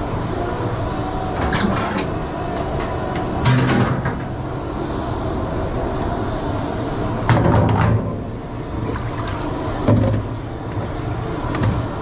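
Dishwashing in a commercial kitchen: a steady hum of machinery under five or so sharp clatters of dishes and metal ware being knocked and set down, the loudest about halfway through.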